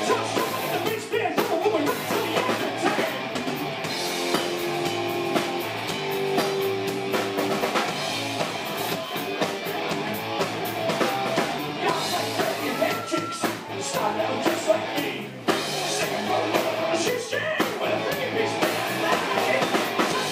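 Live rock band playing: electric guitars over a full drum kit, with a singer's vocals in places.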